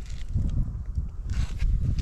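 Honda Ape 100 air-cooled single-cylinder four-stroke engine idling through a Yoshimura titanium exhaust, a low uneven pulsing, with a short hiss partway through. It runs without abnormal noise.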